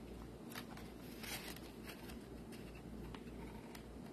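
Faint rustling and a few soft scratches of paper card stock being handled and slipped into place, over a low steady hum.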